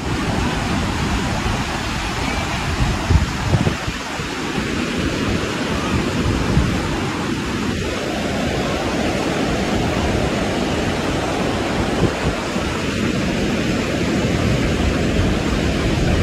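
Ocean surf breaking and washing up the shore in a steady rush, with gusts of wind buffeting the microphone now and then.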